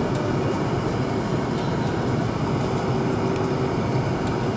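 Steady cabin roar of an Airbus A330-200 descending to land: its Rolls-Royce Trent 700 engines and the rushing airflow, with a faint steady hum underneath.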